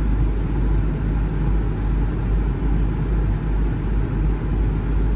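Steady sound of a 2000 Land Rover Discovery idling with its air conditioning running: a constant low engine hum under the even rush of air from the blower.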